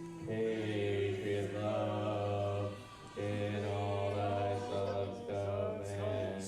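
Male voices singing on one flat, unchanging pitch, a deliberate monotone, in two long held phrases with a short break about three seconds in.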